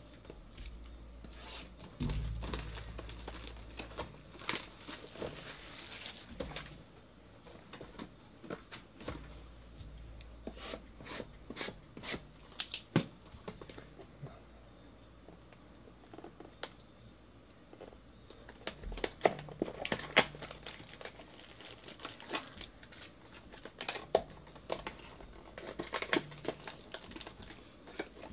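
Crinkling and tearing as the plastic wrap and cardboard of a sealed trading-card hobby box are torn open by hand: irregular crackles and snaps, busiest in the latter half.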